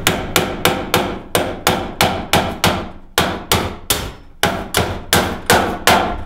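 Hammer driving the built-in nail of a recessed can light's hanger-bar leg into a wooden rafter: a steady run of about twenty sharp strikes, roughly three a second, with a brief pause partway through.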